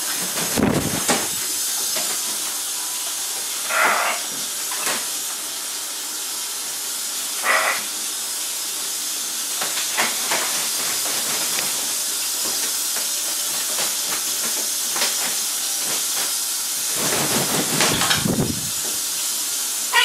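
Kitchen tap running steadily into a stainless steel sink, with splashing as macaws bathe under the stream. A flurry of louder splashing and wing flapping comes near the end.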